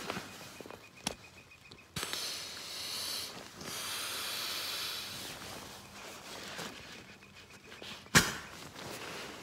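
Air hissing out of an inflatable camping pillow's valve as it is pressed flat, in two long rushes, with fabric rustling. A sharp click or snap comes near the end.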